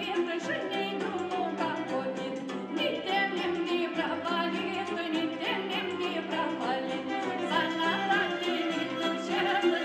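Music with a singing voice over instrumental backing, carried by steady low notes and a recurring low pulse.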